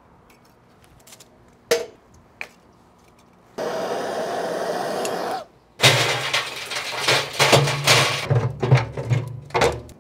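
Lumps of charcoal knocking sharply into a metal chimney starter, twice. A steady rushing noise follows for about two seconds. Then a chimneyful of lit charcoal is dumped into the firebox of a steel box smoker, the coals clattering and crackling against the metal.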